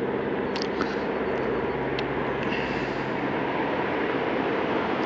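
A steady mechanical hum under a rushing noise that grows louder toward the end.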